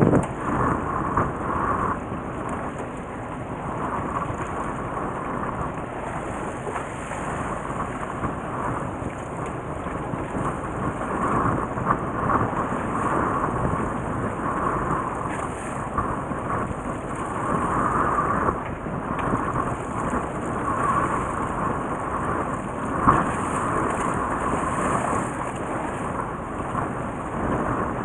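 Steady rushing noise that swells in gusts: wind buffeting the microphone.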